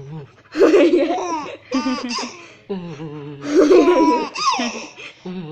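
A baby laughing hard in three bursts of high-pitched giggles, with short, lower adult voice sounds in between.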